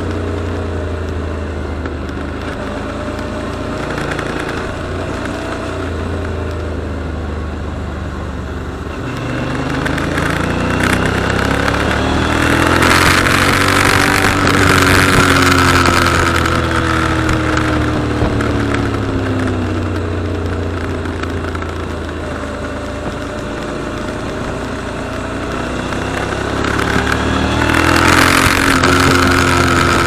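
Motorcycle engine running under way, its pitch rising and falling as the bike speeds up and slows through the bends. Wind rush on the microphone swells twice with the speed, around the middle and again near the end.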